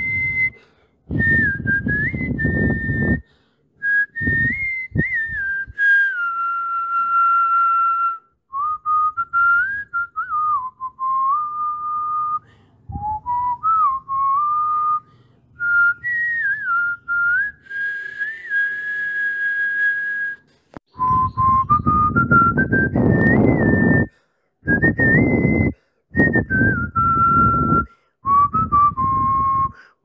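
A whistled tune: one high melody line with held notes and short slides up and down, stopping and restarting abruptly several times. A rough low noise runs under it in several stretches.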